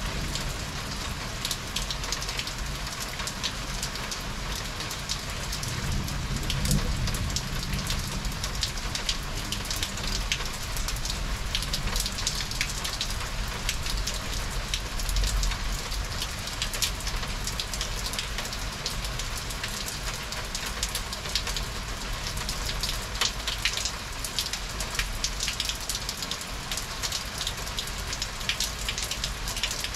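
Heavy rain pouring down steadily and pattering on hard surfaces, with many sharp drop ticks. A low rumble swells for a couple of seconds about six to eight seconds in.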